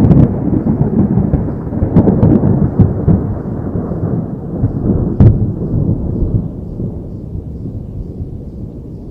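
Rolling thunder: a loud low rumble with scattered sharp cracks, dying away slowly.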